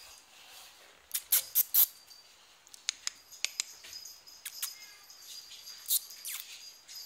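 Italian greyhound puppy's claws clicking on a tile floor as it trots about: a quick run of four sharp clicks about a second in, then scattered lighter clicks.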